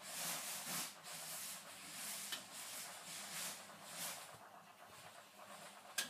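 1991 Hotpoint Electronic 1000 De Luxe 9536 washing machine in its wash, the drum turning with water and washing swishing inside, about one swish a second.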